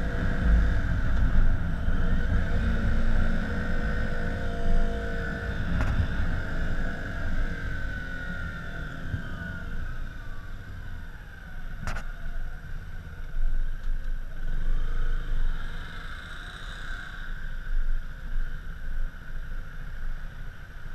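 KTM Duke 125's single-cylinder four-stroke engine running at low town speed, with wind and road noise on the microphone. The engine note falls as the bike slows, and there is a sharp click about twelve seconds in.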